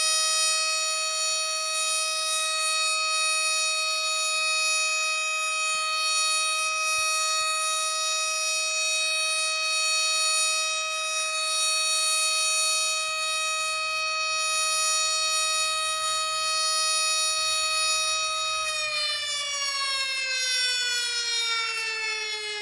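Civil defense siren sounding the one-minute remembrance signal: a single steady wailing tone held at one pitch, then winding down with a steady fall in pitch near the end.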